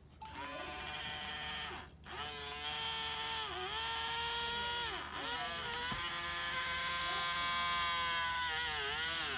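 Small electric motors of a robot arm whining as it moves. The whine sags in pitch and breaks briefly about four times as one motion stops and the next begins.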